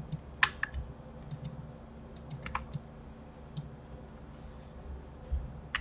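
Computer keyboard keys and mouse buttons clicking, a dozen or so short irregular clicks, over a faint steady electrical hum.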